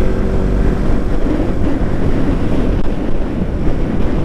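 Bajaj Pulsar NS200's single-cylinder engine running steadily as the motorcycle is ridden, with wind buffeting the camera microphone.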